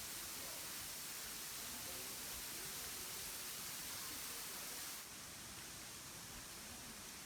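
Steady hiss of running water, with no distinct events; it drops a little in level about five seconds in.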